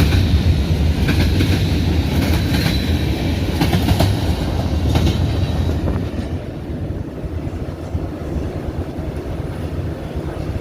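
Freight cars of a manifest train rolling past, their wheels clicking over the rail joints with a faint wheel squeal. The clicking and squeal fade and the sound quietens about six seconds in.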